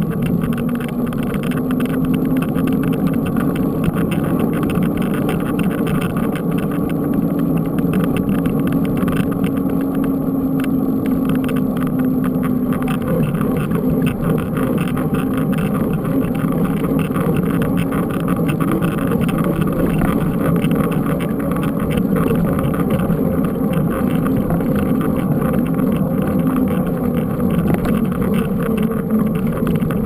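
Steady road noise from a moving mountain bike: knobby tyres humming on asphalt and wind rushing over a handlebar-mounted camera, with a low hum that drifts slightly in pitch as speed changes.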